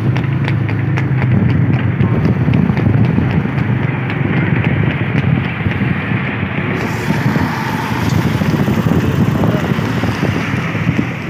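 A trotting horse's hooves clip-clopping on the road, mixed with a steady low rumble of vehicle engines running alongside.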